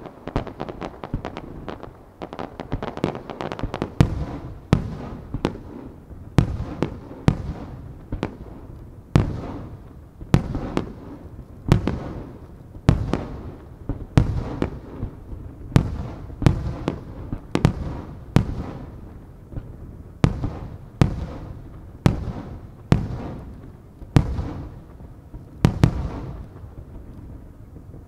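Aerial firework shells bursting in a series of sharp bangs, each with an echoing tail. A dense run of quick reports at the start, then single bangs about once a second, stopping about a second before the end.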